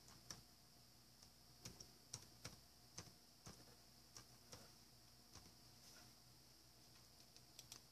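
Faint computer keyboard keystrokes, an irregular run of light clicks as a word is typed.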